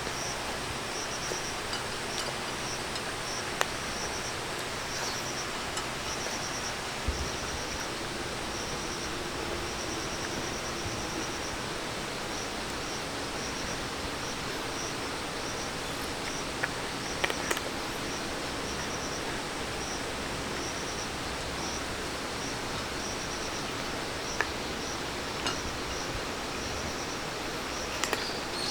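Outdoor summer ambience: a steady, even rushing noise, with a short high insect trill repeating over and over through the first half and a few light clicks.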